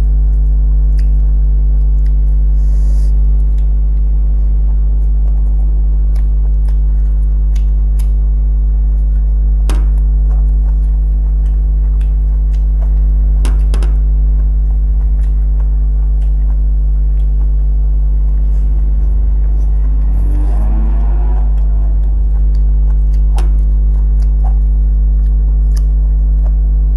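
Loud, steady electrical mains hum with a row of overtones, over scattered faint clicks and smacks of fingers mixing rice and stir-fried mustard greens with shrimp on a plate and of eating.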